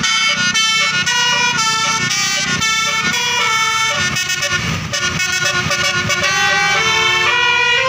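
Bus 'telolet' Basuri musical air horn playing a fast melody of stepped notes, several tones sounding together.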